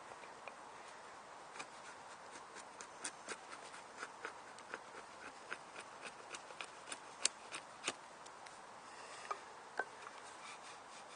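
A Täräva Jääkäripuukko knife carving a wooden stick: a run of short, sharp snicks, about one or two a second, as the blade takes off shavings, over a faint steady hiss. The snicks bunch up in the middle and thin out near the end.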